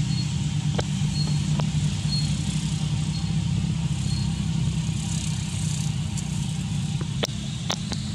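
A steady low engine hum, as of a motor running at idle. Faint short high chirps come about once a second, with a few light clicks.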